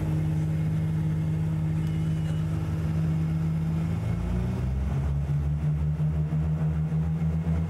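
Engines of a twin-engined propeller plane running steadily, heard from inside the cabin. About halfway through the pitch shifts briefly, and afterwards the engine sound carries a pulsing beat.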